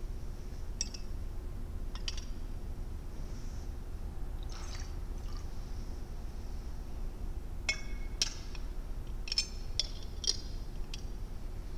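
Wine and water being poured into a chalice from cruets, with a soft pour and then several sharp clinks of the cruets against the chalice rim.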